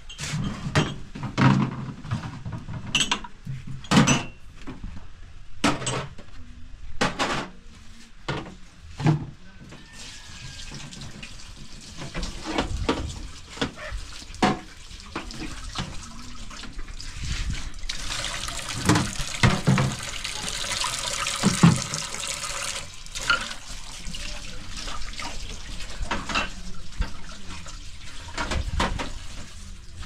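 Water running from a tap, a steady hiss that starts about a third of the way in and is strongest for a few seconds in the middle. Before the water comes on there are several sharp knocks and clatters.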